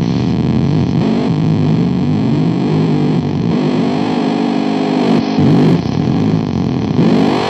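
Harsh noise music: a loud, distorted synthesizer drone of many wavering tones, with a slow pitch sweep that rises and falls past the middle and a sudden louder burst about five seconds in.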